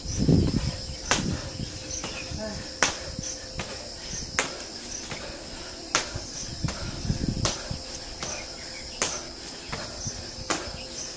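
Steady, high-pitched chorus of insects, with a sharp click about every second and a half.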